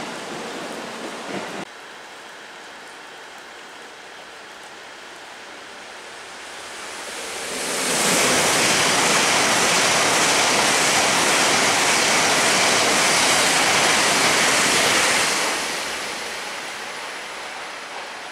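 E7/W7-series Shinkansen train passing through the station at speed without stopping: a rushing noise that swells about six seconds in, holds loud and steady for about eight seconds, then fades away.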